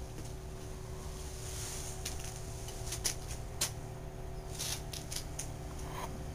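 Handling noise from a handheld video camera carried through a yard: a steady low hum with a faint constant whine, and scattered light clicks and taps of the camera being handled and of footsteps.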